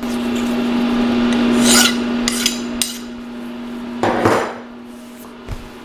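Hand deburring of a freshly milled steel vise jaw: rasping strokes of metal scraping on metal, several in the first three seconds and one more about four seconds in, over the steady hum of a phase converter.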